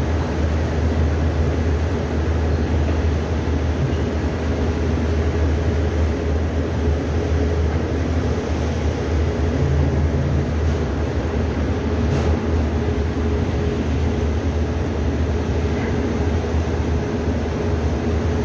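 Boat's engines running with a steady low drone and hum, heard on board the vessel.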